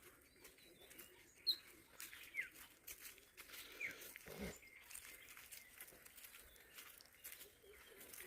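Faint, scattered bird chirps in woodland: a few short, high, falling whistles, with one brief lower call about four and a half seconds in.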